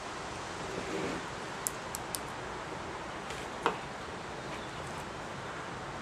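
Small ticks and clicks of a pick tool and metal terminal pins being worked out of a plastic wiring-harness connector: a soft rustle of wires, three light ticks about a second and a half in, and one sharper click a little past halfway, over a steady background hiss.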